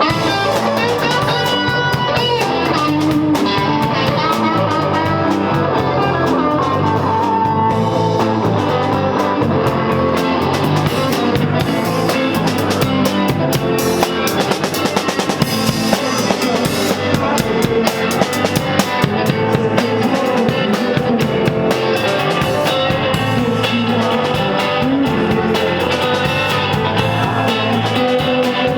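A band playing rock music: guitar over a steady drum kit beat.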